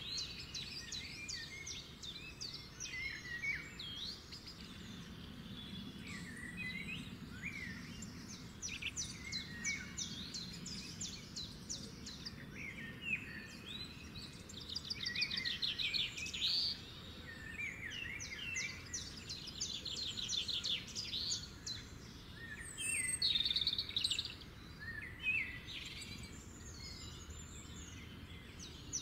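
Several songbirds singing and chirping, with bursts of rapid trills, over a low steady background rumble.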